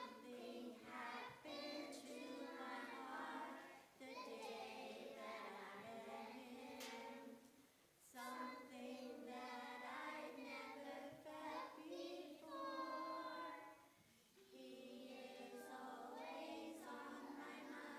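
A children's choir singing a song together, in sung phrases with short breaks between them.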